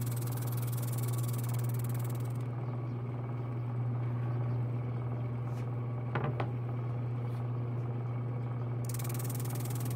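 Shop-built V-drum sander running with a steady hum while a large plywood piece is pushed by hand across its sandpaper-wrapped drum. There are two quick ticks about six seconds in.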